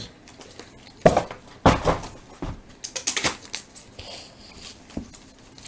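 Trading cards and pack wrappers being handled on a table: a few scattered rustles and light taps.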